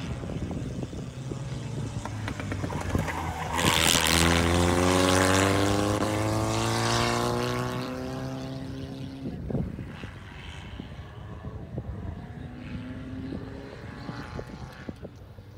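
Rabbits Fórmula 1800 single-seater race car's 1.8-litre engine at racing speed, passing by. It grows loud about four seconds in, then its note falls steadily over the next five seconds as the car pulls away and fades into the distance.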